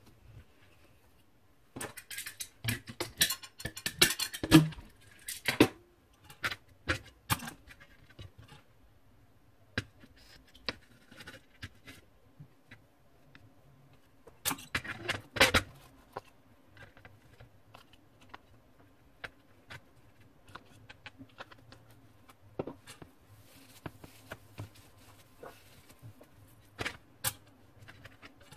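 Needle-nose pliers and a soldering iron clinking and knocking against a black pan and a copper-foiled piece during soft soldering, in scattered small clicks with two busy clusters, one a couple of seconds in and one about halfway through.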